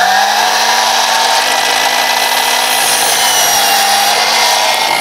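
Milwaukee Fuel cordless mitre saw running at full speed with a steady whine, its blade cutting through a treated timber batten.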